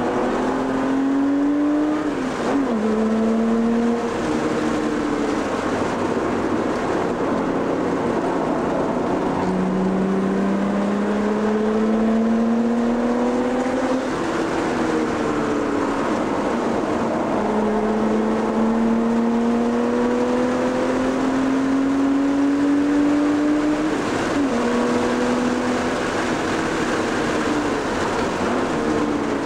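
A car's engine heard from inside the cabin at speed on a track, its pitch climbing slowly through long accelerations and dropping suddenly at gear changes or braking about two seconds in, around halfway, and near the end, over steady wind and road noise.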